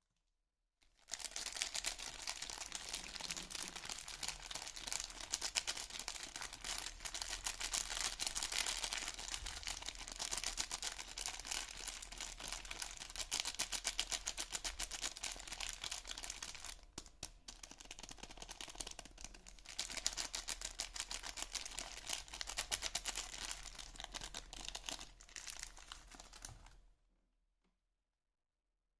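Soap packaging being unwrapped by hand: dense, rapid crinkling and crackling of wrapping, with a short pause about 16 seconds in. It stops a couple of seconds before the end.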